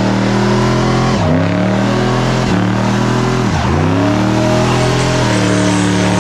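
Car engine held at high revs during a burnout, the revs dipping sharply and climbing back up four times, over the hiss of spinning tyres.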